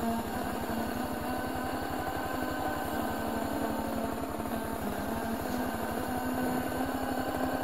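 Small off-road vehicle engine idling steadily, with an even low pulse and no revving.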